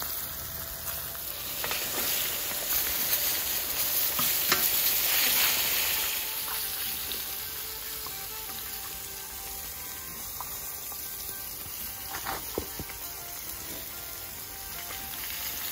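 Veal rib steaks sizzling in oil on a hot saj. The sizzle is loudest in the first few seconds and eases off after that, with a few sharp clicks about twelve seconds in.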